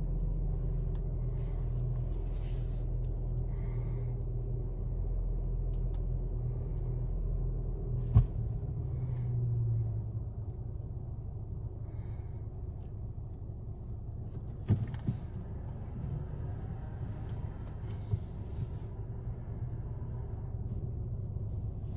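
Low steady rumble of an automatic rollover car wash, heard from inside the car's cabin as the brush gantry travels over the car. A sharp knock comes about eight seconds in, after which the rumble eases, and a few lighter knocks follow later.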